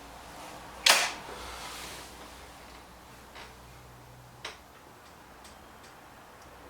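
A spring-powered air rifle fires once about a second in, a sharp crack with a short tail, followed later by two faint clicks.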